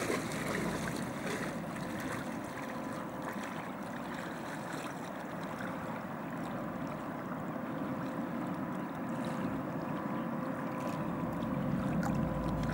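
Rhine river water rushing and lapping steadily, with a faint steady hum running through it and a low rumble coming up near the end.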